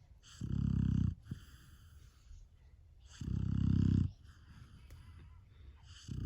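Golden retriever puppy snoring in its sleep: two low, buzzing snores about three seconds apart, each just under a second long, with a third beginning at the very end.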